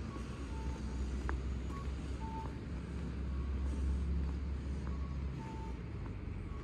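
A two-note electronic chime repeats about every second and a half: a short higher note, then a longer lower one, like a station entrance's guide chime for blind passengers. A steady low rumble runs underneath.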